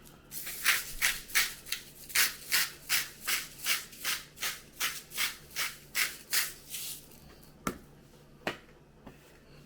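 Hand pepper mill grinding peppercorns, a quick, even run of short scratchy crunches at about three twists a second that stops about seven seconds in, followed by two sharp clicks.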